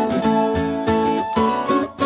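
Background music: a plucked-string melody with quick, evenly spaced notes.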